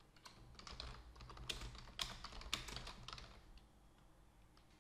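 Typing on a computer keyboard: a quick, faint run of keystrokes that stops about three and a half seconds in.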